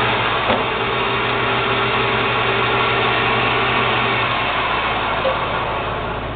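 A machine running steadily with a humming drone. There is a single brief click about half a second in, and the sound eases slightly near the end.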